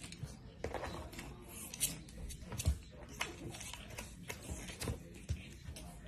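Two pug puppies scuffling at a bowl on a kitchen scale: irregular light taps, scrapes and claw clicks on the bowl and the hardwood floor, with a few soft thumps.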